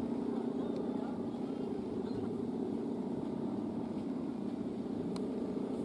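Steady droning hum of Balinese kite hummers (guangan) in the wind, several tones sounding together without a break.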